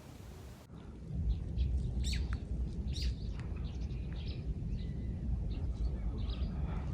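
Small birds chirping, a string of short high calls with a couple of quick falling notes, over a steady low rumble.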